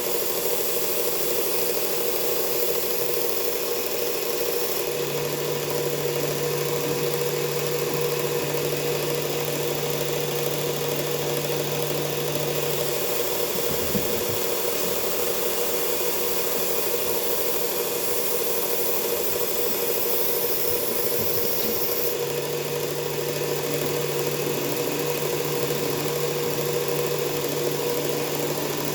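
Belt sharpener motor and abrasive belt running steadily while a knife edge is sharpened on it, with a lower tone that cuts in about five seconds in, drops out near the middle and returns later.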